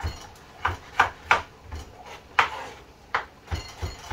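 A kitchen knife chopping butternut squash into cubes on a wooden cutting board: about nine sharp, unevenly spaced strikes of the blade through the squash onto the board.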